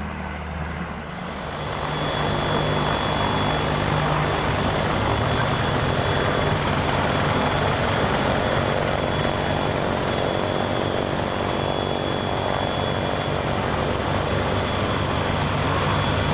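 Propeller engine of a Cessna 172 light aircraft running steadily while it taxis: a low drone under a constant hiss, getting louder about a second in.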